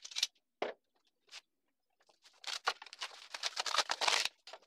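A few light knocks, then a long stretch of dry scraping and crackling as a freshly glued hardwood cutting-board blank is worked free of its plastic sheet and the dried glue along it is scraped and cracked off. The scraping builds from about halfway through, is loudest shortly before the end, then stops.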